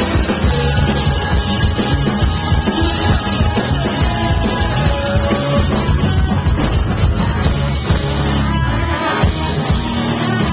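Rock band playing live: drum kit, electric guitars and a singer, loud and steady, heard from the audience through a pocket camcorder's microphone.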